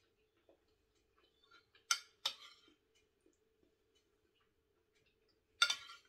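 Eating at a table: two sharp clicks about two seconds in, then near the end a louder clink with a brief ring as a metal spoon strikes a ceramic dish. A faint steady hum underneath.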